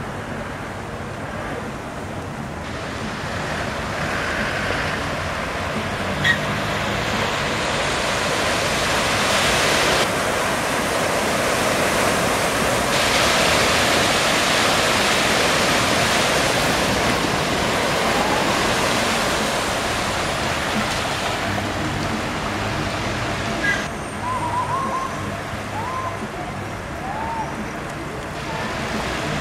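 Steady rushing noise of heavy rain and floodwater on a flooded street, with cars ploughing through deep water and throwing up spray. The noise is loudest in the middle and changes abruptly several times.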